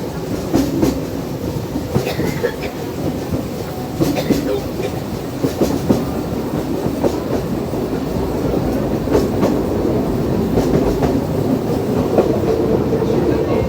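Train running on rails: a steady rumble with irregular clicks and clacks from the wheels over the track, growing slightly louder toward the end.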